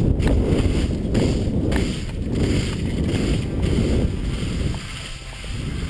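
Wind buffeting the microphone of a camera worn by a skier on a downhill run: a loud, low rumbling rush, with skis scraping over cut-up snow. It eases off briefly near the end.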